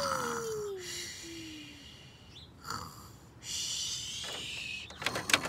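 A child making pretend snoring and wheezy breathing sounds, starting with a falling hum and then breathy hisses about a second long. Near the end come a few sharp clicks of plastic toys being handled.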